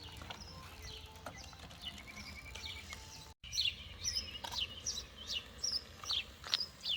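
Birds chirping outdoors: many short, quick calls, many sweeping downward, coming thicker after a brief gap about three seconds in, over a steady low rumble.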